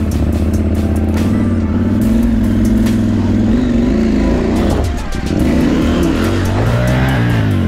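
Off-road motorcycle engine running under load on a trail, its revs rising and falling with the throttle, dipping briefly about five seconds in and climbing again near the end.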